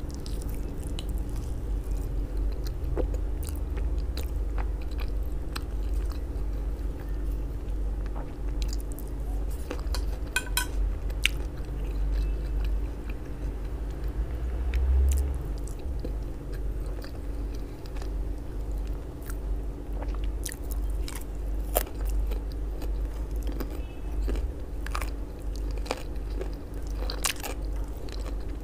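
Close-miked eating: biting and chewing pieces of grilled sausage dipped in mayonnaise sauce, with many short, wet mouth clicks scattered throughout.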